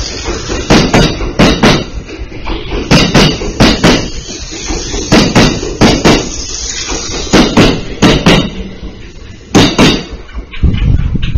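Kintetsu 50000-series Shimakaze limited express running through a station: its wheels clack over the rail joints in groups of about four sharp beats, one group every two seconds or so as each car's bogies cross, over a steady low rumble. The last clacks come just before ten seconds in, then only the rumble is left.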